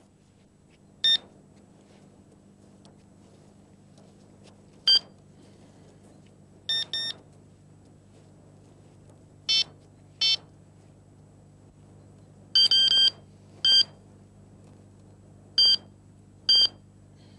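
Electronic carp bite alarms on a rod pod giving about ten short, high-pitched beeps at uneven intervals, some in quick pairs and one a little longer run about thirteen seconds in.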